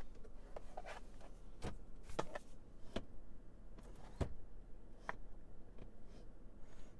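Irregular clicks and light knocks, about half a dozen, from a car's interior controls and trim being handled inside the cabin.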